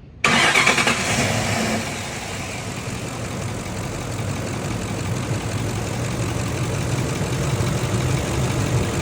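2006 Ford F-150 engine starting just after the beginning, briefly louder, then settling into a steady idle. The idle runs without the flex plate noise heard before: the damaged flex plate has been replaced.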